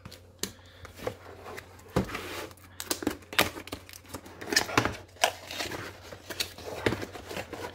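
Cardboard box handled and its end flap pulled open: irregular scrapes, taps and rustling of cardboard, with a firmer knock of the box on a wooden tabletop about two seconds in.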